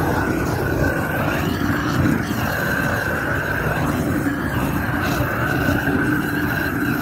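Blowtorch flame burning with a loud, steady rush, scorching the inside of a wooden beehive to kill microbes, bugs and moth larvae.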